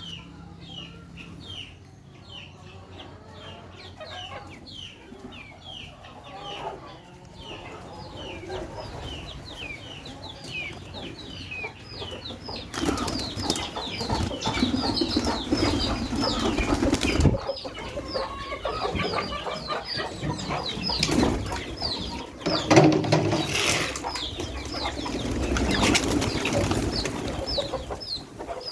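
Chickens feeding, with a steady chatter of short, high, falling peeps. About halfway through, louder rustling and wing-flapping joins in.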